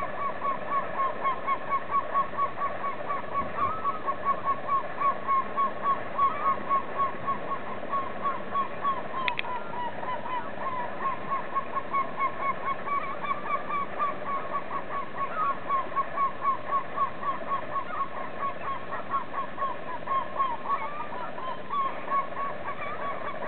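A male gull calling over and over while mating: a long unbroken run of short honking notes, about three or four a second.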